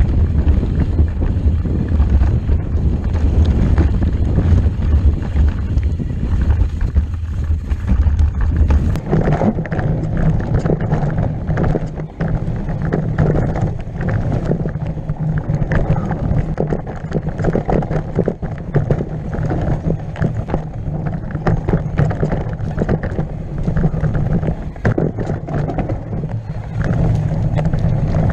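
Wind buffeting the microphone of a camera on a downhill mountain bike at speed. From about nine seconds in, the bike's tyres, chain and suspension rattle and clatter constantly over a rough, rooty dirt trail.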